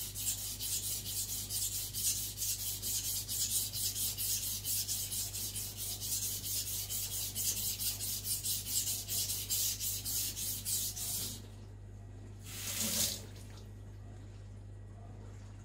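Steel knife edge scraping back and forth on a wet Naniwa Aotoshi 2000-grit green whetstone, in quick even strokes of about four a second. The strokes stop about 11 seconds in. About two seconds later there is one short rubbing swish, then a faint steady hum.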